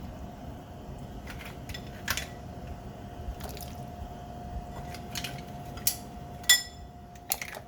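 Mussels being dropped into a pot of soup, making a series of scattered clicks and clinks as the shells land. The loudest comes about six and a half seconds in and is a sharp clink that rings briefly. A faint steady tone runs underneath.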